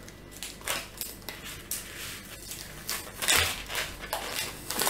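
Crinkly plastic wrapper of a Cadbury Dairy Milk Oreo chocolate bar being peeled and pulled open by hand, in a string of irregular crackles, loudest a little after three seconds in.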